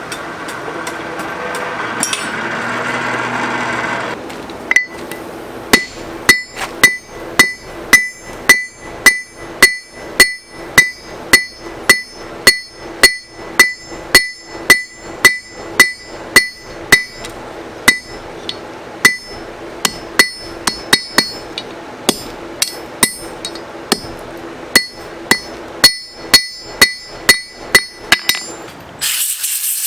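Hammer striking metal in a steady run of blows, about two a second, each leaving a short metallic ring. It starts after a few seconds of steady rushing noise and pauses briefly once.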